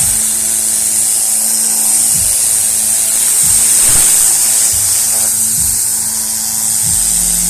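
Tornador compressed-air cleaning gun blowing a steady high hiss of air, with background music and a regular beat underneath.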